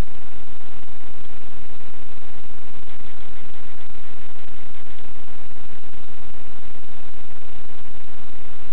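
Loud, steady hiss of recording noise, even and unchanging throughout, with no distinct sounds in it.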